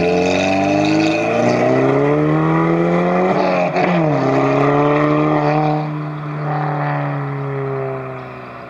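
2012 Volkswagen GTI (MK6) turbocharged 2.0-litre four-cylinder with a catless 3-inch downpipe and 2.5-inch AWE cat-back exhaust, accelerating away. The engine note climbs, drops sharply at a gear change about four seconds in, then climbs again while fading as the car pulls away.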